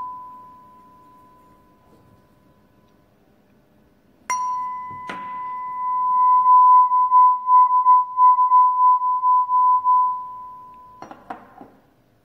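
A steel tuning fork's pure high tone dying away, then the fork is struck with a rubber-headed mallet about four seconds in: a sharp tap with a brief metallic clang, a second tap, and the tone rings out again. The tone swells and pulses in loudness as the fork is moved close to the microphone, then fades about ten seconds in, followed by a few light clunks of metal on the table.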